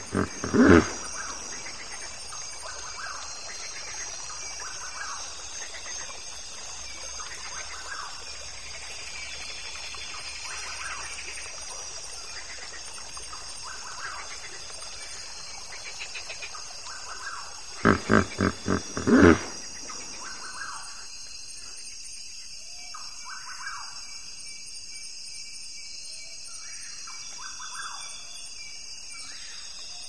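Hippopotamus calling: a short honk at the start, then a rhythmic run of about five loud honking grunts about 18 seconds in. Birds chirp steadily in the background.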